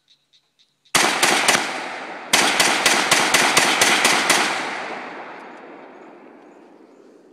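M4-type rifle firing about a dozen rapid shots, emptying the magazine. Three shots come close together, then after a short break about nine more at roughly four a second. Each report echoes, and the echo fades away over several seconds after the last shot.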